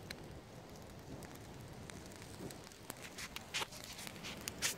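Small wood campfire crackling with scattered sharp pops, and a few louder crunches on dry leaf litter in the last two seconds, the loudest just before the end.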